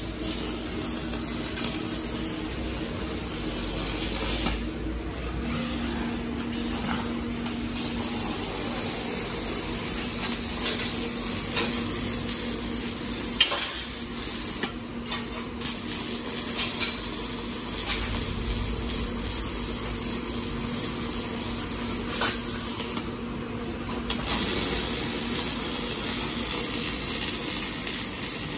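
A welding robot's arc torch welding steel: a dense, crackling hiss with spatter sparks, cutting out briefly three times (about four and a half seconds in, around fifteen seconds and around twenty-three seconds) before striking again, over a steady low hum.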